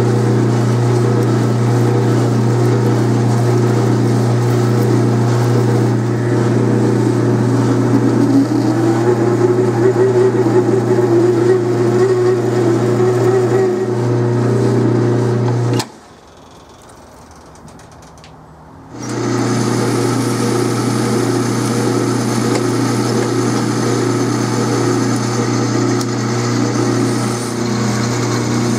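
Metal lathe running with a steady motor hum while a drill bit fed from the tailstock cuts into the spinning metal workpiece, followed by a cutting tool counterboring its face. The sound drops away for about three seconds a little past halfway, then picks up again at the same level.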